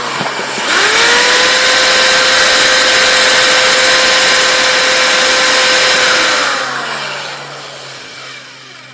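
An electric power tool's motor spins up with a rising whine and runs steady with a loud hiss over it. From about six and a half seconds in it winds down, the whine falling in pitch as it fades out.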